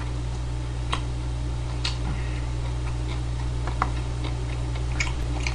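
Metal chopsticks clicking against a plastic takeout tray while mixing buckwheat noodles: a handful of short, irregular clicks over a steady low electrical hum.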